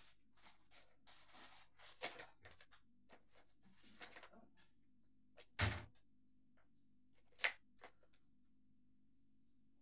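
Kitten batting at a plastic ball-track tower toy, making scattered light clicks and knocks. There is a louder thump about five and a half seconds in and a sharp clack about two seconds later.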